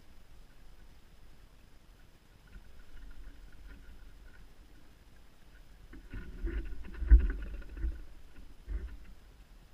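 Low rumbling and rustling close to the microphone, like clothing and kit being handled, with a burst of knocks and one sharp knock about seven seconds in and a smaller one near the end.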